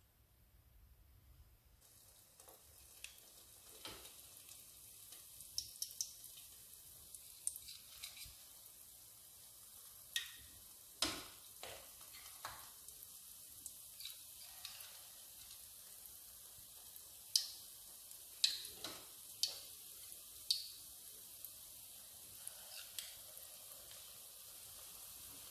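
Peanut oil sizzling in a pan as spoonfuls of herb batter fritters deep-fry, a steady hiss that sets in about two seconds in. Sharp clicks and pops are scattered through it, most of them in the middle and latter part.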